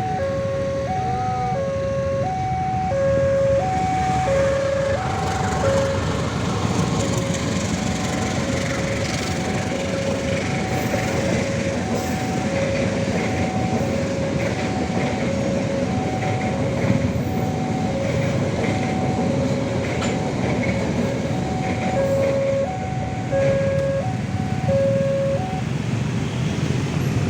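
Railway level-crossing warning alarm sounding a two-tone signal, a low and a higher tone alternating about every half second, over the rumble and clatter of a passing train. The alarm cuts off near the end.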